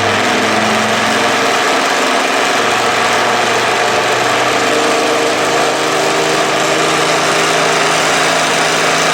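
Homemade belt sander driven by a salvaged electric drill motor, running steadily. Its pitch shifts slightly about a second in and drifts a little after, as the speed is adjusted.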